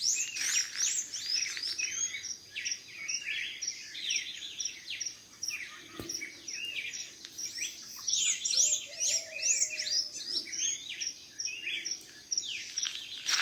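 Dawn chorus of several songbirds singing and chirping over one another, with a steady repeated high note about twice a second running under the songs.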